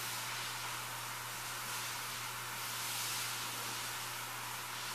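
Steady, even hiss with a low hum underneath and no distinct events: workbench background noise.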